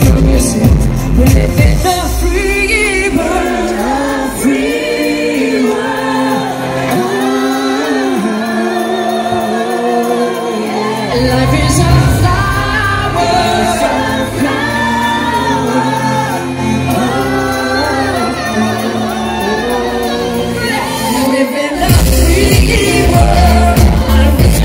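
Live pop song played over a festival PA: a female lead singer over a band. The bass drops away about two seconds in, leaving the voice over lighter backing, then comes back in about halfway through and is fullest near the end.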